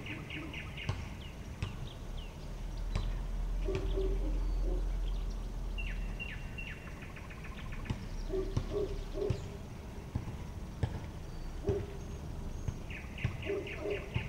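Outdoor street ambience: short series of rapid high chirps, three times, with a few short low notes, scattered clicks and a low rumble that swells a few seconds in and fades.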